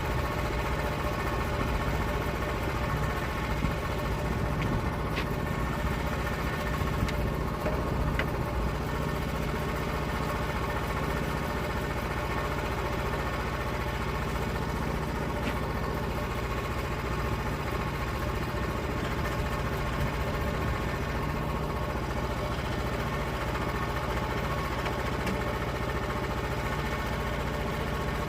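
Gasoline engine of a log-milling saw running steadily at constant speed, with no change in pitch.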